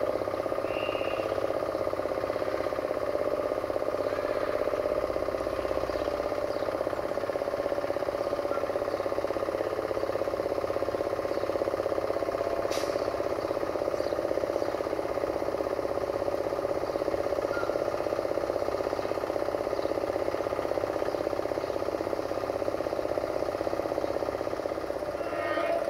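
A stationary railway locomotive running steadily: a constant mechanical hum with a light rattle, and one sharp tick about halfway through.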